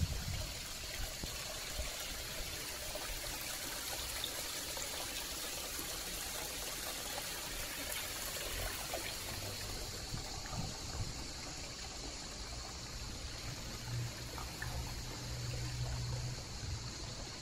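Water trickling and running steadily from a stone grotto wall fountain over its steps into the basin.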